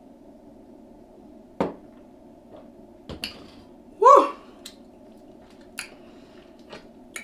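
Close-miked eating sounds: scattered sharp clicks and wet smacks, with one louder, short pitched slurp about four seconds in, over a steady low hum.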